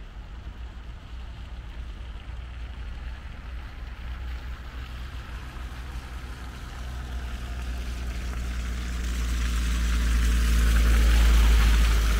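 Train approaching and passing on the railway, an engine note and the rush of wheels on rails building steadily from about halfway through to its loudest near the end, over a constant low rumble.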